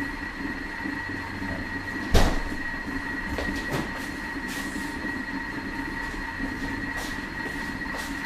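Thermomix TM6 kitchen machine running while cooking at 120 °C, a steady whine over a low hiss. A single loud knock about two seconds in, and a few lighter clicks, from dishes being handled.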